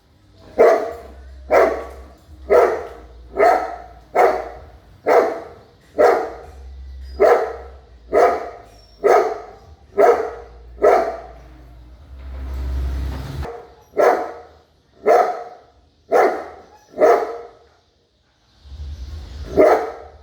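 Big dog barking: a steady run of deep barks at about one a second, a short pause about two-thirds of the way through, then a single bark near the end.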